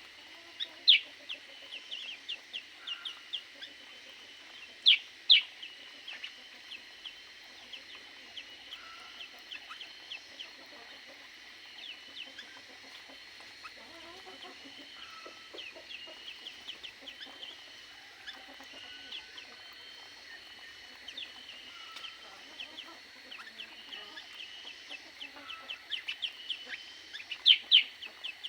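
A flock of aviary birds chirping constantly in short, sharp notes, with a few much louder calls about a second in, twice around five seconds, and near the end.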